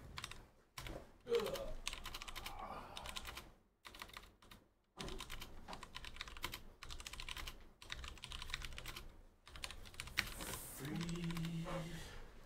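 Typing on a computer keyboard: quick runs of key clicks broken by a few short pauses.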